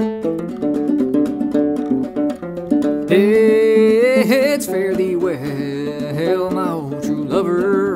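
Gourd banjo played clawhammer style, a quick run of plucked and brushed notes. About three seconds in, a man's voice starts singing the melody over the continuing banjo.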